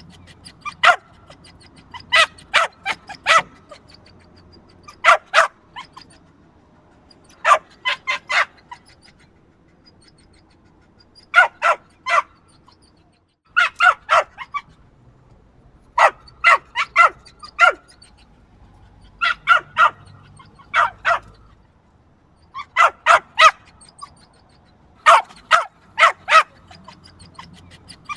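Small dog barking sharp, high yaps in quick runs of two to four, with short pauses between runs.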